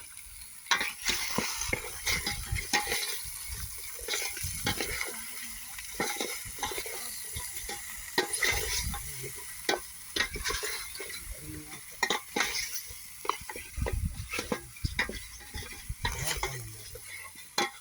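Goat meat frying in a pan over a fire, stirred with a utensil that scrapes and clicks against the pan in irregular strokes over a steady sizzle.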